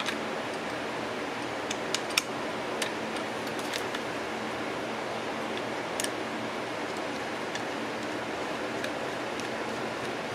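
Scattered light clicks and taps of a screwdriver and small metal parts as a screw is worked into the end cover of a Singer 306K sewing machine motor, over a steady hiss.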